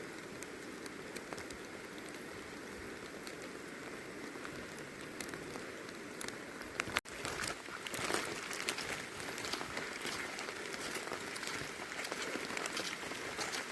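Steady rain falling, with many individual drops ticking. About halfway through the sound breaks off abruptly, then comes back louder and denser.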